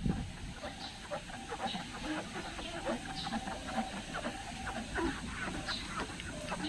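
Chickens clucking, with light wiping of a sponge applicator on car window glass.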